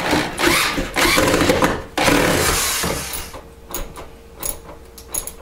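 Power drill driving self-tapping screws through the safe's case into the wooden wall studs, in two runs of about a second and a half each, followed by a few light clicks.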